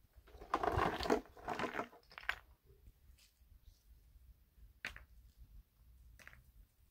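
Dry material crunching and rustling as it is gathered up by hand from bare ground, for about two seconds, followed by two short, faint clicks.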